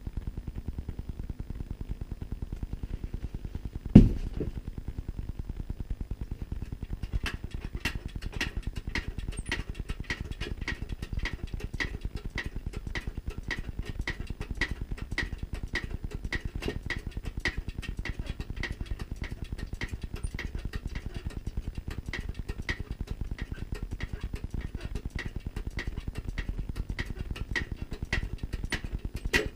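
Workshop machinery: one sharp bang about four seconds in, then a steady run of mechanical clicks, about three a second, over a low hum.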